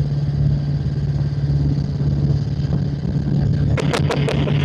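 Helicopter turbine and rotor running steadily at speed with a strong low drone, during a low, fast pass. About four sharp cracks come in quick succession near the end.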